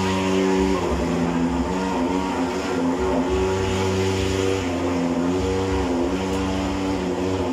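Portable thermal fogging machine running steadily with a loud buzzing drone, its pitch wavering slightly now and then while it puts out insecticide smoke.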